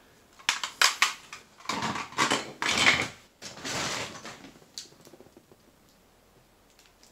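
Hard plastic toy pieces clicking and clattering as they are set down and rummaged through in a bin of action figures, with a few sharp clicks first, then a couple of seconds of rattling, dying away about five seconds in.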